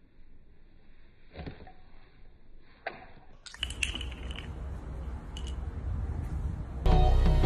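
Two short, sharp knocks a second and a half apart over faint background noise; the noise grows louder about halfway through, and loud music starts near the end.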